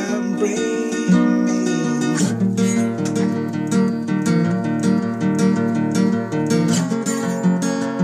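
Strummed acoustic guitar playing a song demo, the chord changing about two seconds in and again near the end.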